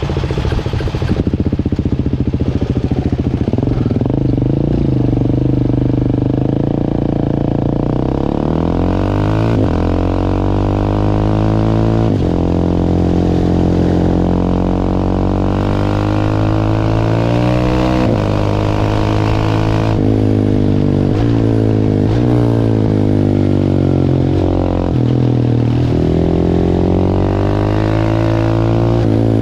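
690 cc single-cylinder supermoto motorcycle engine under hard riding, its revs climbing and then dropping back again and again as it accelerates and shifts up through the gears.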